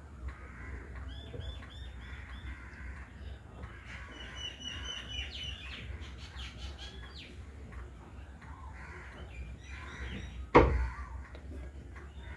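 Birds chirping in the background in runs of short repeated chirps, with crows cawing. About ten and a half seconds in, a single sudden loud burst.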